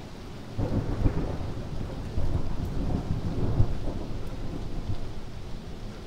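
A long roll of thunder that starts about half a second in, swells with a deep crackling rumble, and dies away toward the end.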